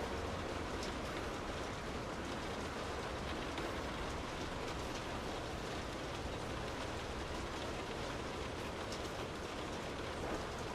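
Steady rain heard from indoors, falling evenly without pause, with a few sharper taps near the end.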